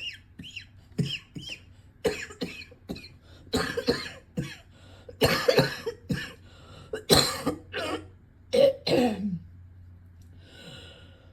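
A person coughing again and again in about half a dozen short, harsh fits, with some throat clearing.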